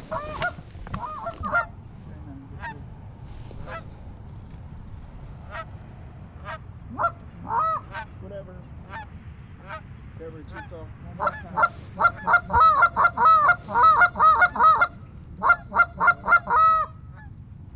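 Geese honking and clucking: scattered single calls at first, then a rapid, loud run of many overlapping honks from about eleven seconds in that stops shortly before the end.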